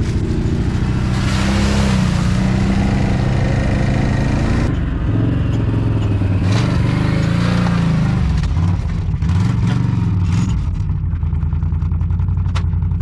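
Can-Am ATV engine running under a full load, then revving up and down from about five seconds in as the quad is driven up a ramp into a pickup bed.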